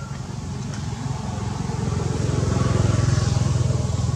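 A motor vehicle's engine passing by off-camera, a low pulsing drone that grows louder to about three seconds in, then begins to fade.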